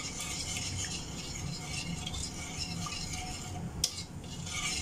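Metal spoon stirring a simmering sugar syrup in a stainless steel wok: a steady light hiss with small scrapes. One sharp click near the end.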